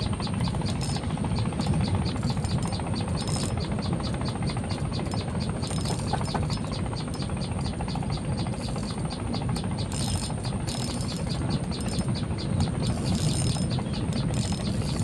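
Insects chirring steadily in a high, fast-pulsing trill, over a low steady rumble.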